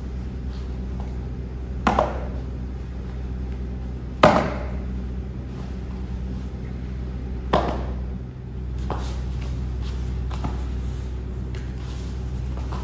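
Hands and bodies of two grapplers slapping against foam mats and each other: three sharp slaps a couple of seconds apart, then a few fainter ones, over a steady low hum.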